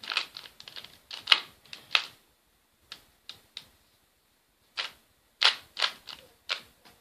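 A Rubik's-brand 2x2 Rubik's Cube being turned by hand through a move sequence: quick plastic clicks and clacks of its layers snapping round, in two busy runs with a pause of about a second between them.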